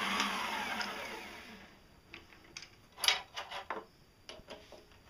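Small benchtop lathe spinning down, its whine falling in pitch and fading over about two seconds. This is followed by a few sharp clicks and knocks, the loudest about three seconds in, as the chuck and the freshly turned plastic bearing are handled.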